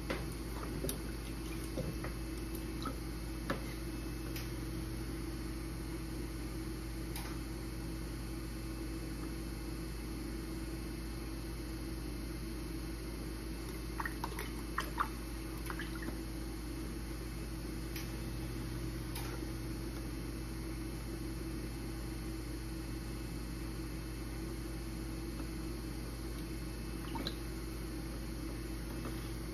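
Electric pottery wheel running with a steady hum while wet clay is thrown on it, with occasional squishes, drips and small ticks from wet hands, clay and the water bucket, a little cluster of them about halfway through.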